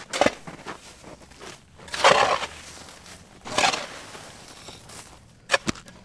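Hand digging in rock ore: two long scrapes through loose stone, about two seconds in and again a second and a half later, then sharp chipping strikes of a pick on rock near the end.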